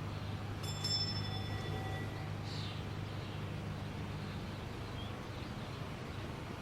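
Quiet, steady low hum with a few faint high held tones about a second in and a brief chirp near the middle: the ambient opening of a song before its beat comes in.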